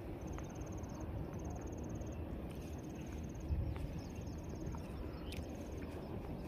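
An insect chirping in repeated high-pitched trills, each a rapid run of pulses lasting about half a second and coming roughly once a second, over a steady low outdoor rumble.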